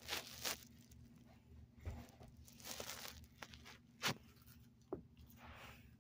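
Socked feet shuffling, sliding and thumping on carpet in quick, irregular steps, with a couple of sharper knocks about four and five seconds in. A faint steady low hum runs underneath.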